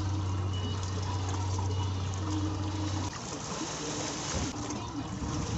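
Sea water sloshing against a fishing boat's hull, with wind on the microphone. A low steady hum stops about three seconds in.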